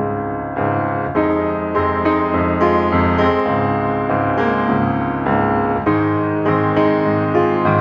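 Background music: a piano or electric-piano melody, with a new note or chord about every half second.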